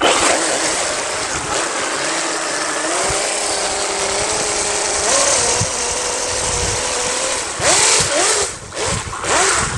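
1/5-scale RC snowmobile driving over snow-covered ice: the whine of its 550-class brushless electric motor steps up in pitch about two seconds in and then holds steady over a steady hiss. Near the end the whine comes in several short rising and falling bursts as the throttle is worked.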